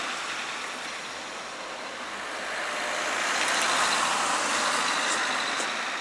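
Road traffic noise: a vehicle passing, its sound swelling about three to four seconds in and then fading.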